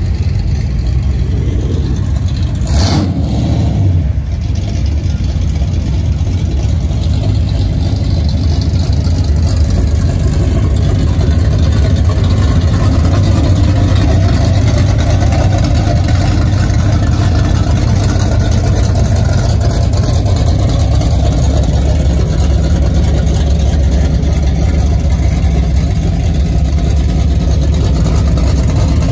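Deep, steady engine rumble of cars cruising slowly along the street, with a brief sharp noise about three seconds in.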